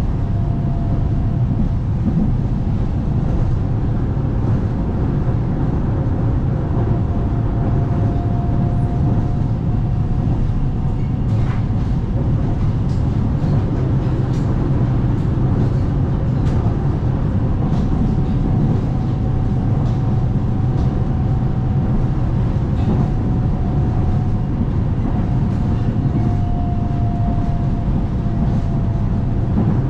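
Dalian Metro Line 12 train running between stations: a steady rumble of wheels on the track with a faint whine that drifts slightly in pitch, and a few light clicks in the middle.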